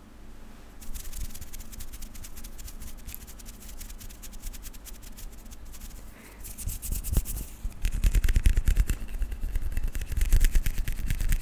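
ASMR hand sounds close to a sensitive microphone: fingers moving and rubbing with a dense run of quick crackly clicks. From about eight seconds in, hands rubbing together make it louder, with a low rumble on the microphone.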